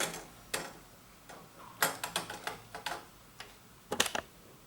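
Irregular sharp clicks and taps of hard plastic Lego pieces being handled, with a cluster around the middle and a louder pair near the end.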